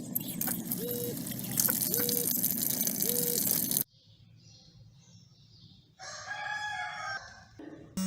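A machine runs with a steady whirring noise and a short repeating tone about once a second, then cuts off abruptly about four seconds in. After a short pause, a rooster crows once, about six seconds in.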